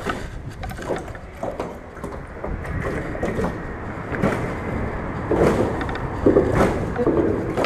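Steady low rumble of traffic crossing the bridge overhead, with scattered short knocks and rustles from fish and line being handled in the boat.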